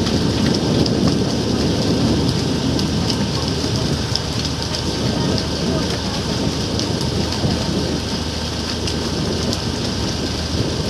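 Steady rushing noise of a motorboat under way: a low engine hum under water rushing past the hull and wind on the microphone.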